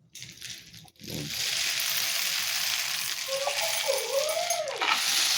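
Homemade rain stick, a cardboard tube with toothpicks inside, tipped over: a few short rattles, then popcorn kernels pour down through the toothpicks in a steady rushing patter for about four seconds. A wavering whine-like tone joins it in the last two seconds.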